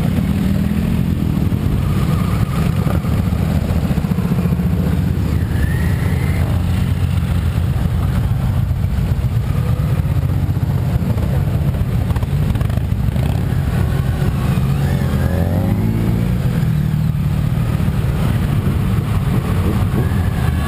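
A long column of motorcycles of mixed kinds, cruisers and sport-tourers among them, riding past in a dense, steady stream of engine sound, with a few engines revving up and dropping back now and then.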